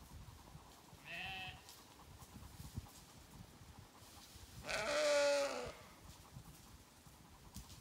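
Zwartbles sheep bleating twice: a short, fainter baa about a second in, then a louder, lower baa lasting about a second around the five-second mark.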